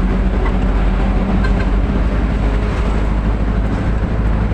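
Delivery truck's engine and road noise while driving, a steady low drone.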